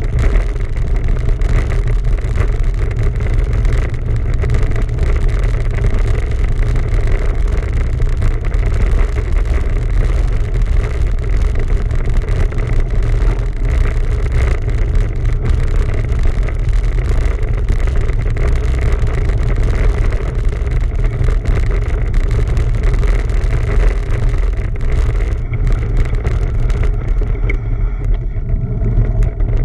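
Steady wind rumble on the microphone of a camera carried on a moving bicycle, with a constant hum from the ride underneath. The higher hiss thins out near the end.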